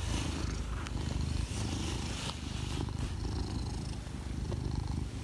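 Domestic cat purring steadily, close to the microphone.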